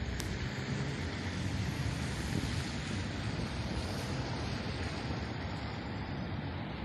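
Steady low rumble of outdoor background noise, like wind on the microphone with traffic behind it, with no distinct event standing out.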